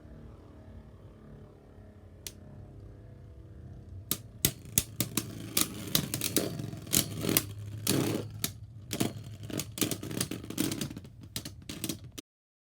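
Beyblade Burst spinning tops, Roar Balkesh B7 and Harmony Pegasus P5, humming steadily in a plastic stadium. From about four seconds in they clash again and again in a fast, irregular run of sharp plastic clacks. The sound cuts off suddenly near the end.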